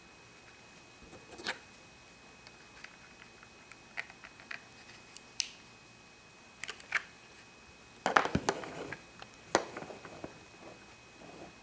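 Small hard-plastic clicks and taps as the hinged panels of a Pocket Lock-It Minnie Mouse plastic playset are folded and snapped, with a quick run of clatter about eight seconds in.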